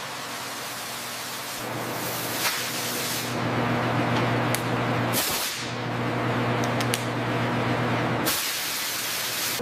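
Steady hiss, like a spray or air jet, over a low mechanical hum, with a few sharp clicks. The hum grows stronger about two seconds in, the sound breaks off briefly about five seconds in, and a louder burst of hiss comes near the end.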